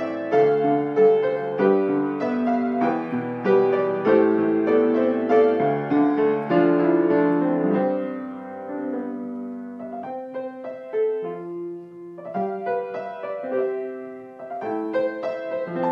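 Solo piano music, thinning to sparser, quieter notes in the middle before filling out again near the end.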